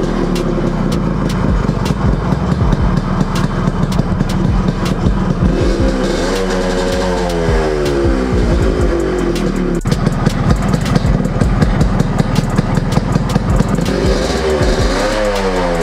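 Yamaha RX100's single-cylinder two-stroke engine running, with the revs rising and falling about six seconds in and again near the end.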